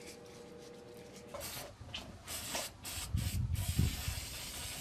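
Hand sanding of hardwood tongs with sandpaper: about six short hissing strokes, followed by a steady hiss with a low rumble under it.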